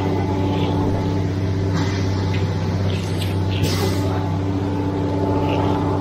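Heavy truck engine running steadily at a constant speed, with a few short scrapes of hand tools on wet concrete about two and about three to four seconds in.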